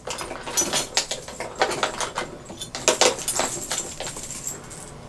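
Fishing tackle being rummaged through and picked up: a quick run of clicks, light rattles and rustling that dies down near the end.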